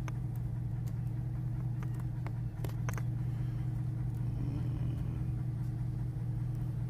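Steady low hum of a running vehicle, with a few light clicks about midway as the plastic tweeter and its wiring are handled.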